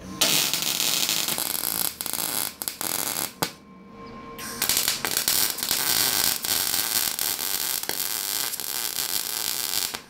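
Electric arc welding crackling and sizzling on steel mini bike seat brackets, in two runs with a short break about three and a half seconds in.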